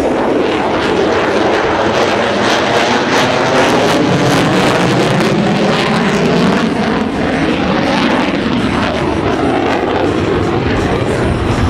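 F-35A Lightning II's single Pratt & Whitney F135 jet engine, loud and steady as the fighter flies by in afterburner.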